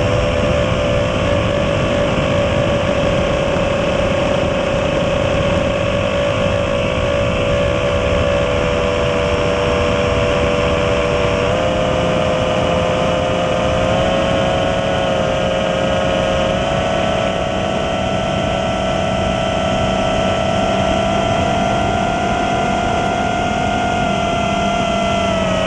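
A 5-inch FPV quadcopter's four 2307 2400kv brushless motors and propellers whining steadily, heard from the camera mounted on the drone, over wind rush. The whine's pitch steps up a little twice around halfway as throttle is added, then drops at the very end.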